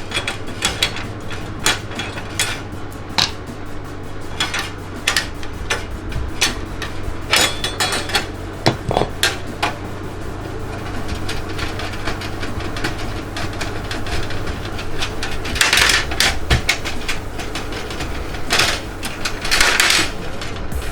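Metal clicks, knocks and scrapes from a PC case's expansion-slot covers being worked out to make room for a two-slot graphics card, with two longer scraping bursts near the end.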